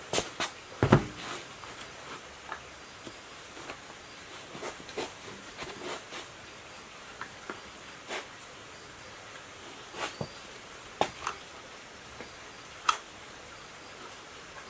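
Irregular light clicks and knocks, with a heavier, deeper thump about a second in.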